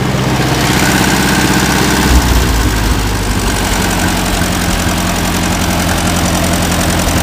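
International Harvester 350 Utility tractor engine running steadily. About two seconds in, a brief knock and a change in the engine's note, settling lower, then it runs on steadily.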